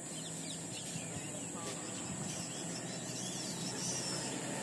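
Quiet outdoor ambience: faint bird chirps over a steady low hum whose pitch drops slightly about three seconds in, with a steady high hiss.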